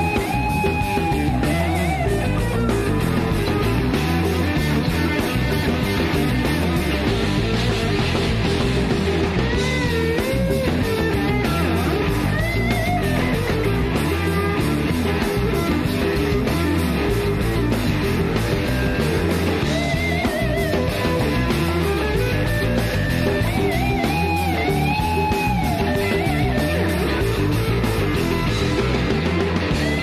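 Rock band playing, led by an electric guitar solo of long, held notes bent up and down in pitch over a steady rhythm section.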